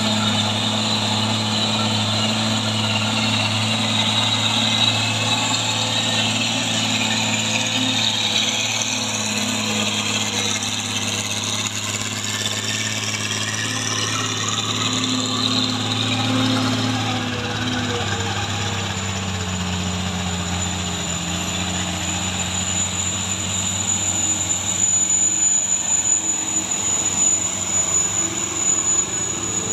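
Heavy diesel truck engines running close by, a steady low drone whose pitch drops about two-thirds of the way through as the revs fall. A thin high whine comes in around then and holds.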